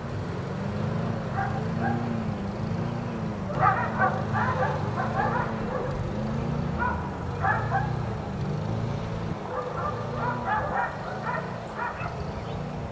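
Several dogs barking and yipping in quick clusters of short barks, thickest about a third of the way in, again past halfway and near the end, over a low wavering hum.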